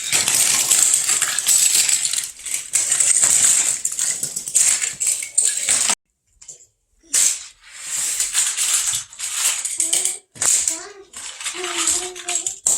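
Die-cast Hot Wheels toy cars clattering and clinking against one another as they are handled in a pile: a dense run of jangling that stops suddenly about halfway, followed by shorter separate bursts of clatter.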